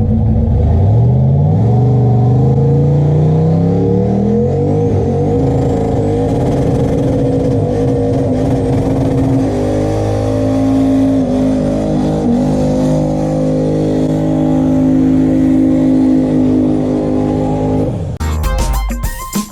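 Turbocharged LS V8 in a Chevy C10 pickup accelerating, its pitch climbing over the first few seconds, then running steadily. Music comes in near the end.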